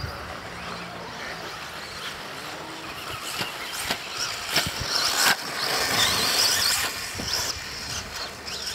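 Radio-controlled off-road car driving over a dirt track: a high motor whine rising and falling with the throttle, with a few sharp knocks along the way.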